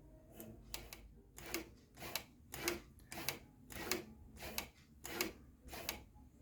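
Home-made motor-driven model railway point motor clicking over and over, about one and a half short knocks a second, without stopping. It keeps running on when it should stop after throwing the point.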